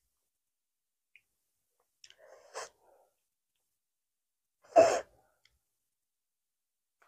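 Quiet handling while rice-paper rolls are wrapped in a plastic-gloved hand. There is a faint rustle about two seconds in and one short, louder burst of noise near five seconds.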